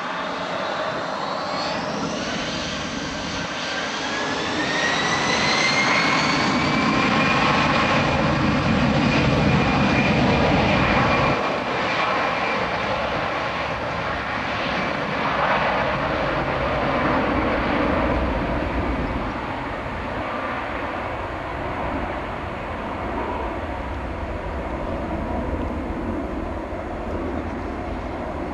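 The twin CFM56 turbofans of an Airbus A320 spooling up to takeoff power: several whines rise in pitch over the first few seconds. The engine noise then grows loud for the start of the takeoff roll and settles to a steady, slightly lower level as the airliner accelerates away down the runway.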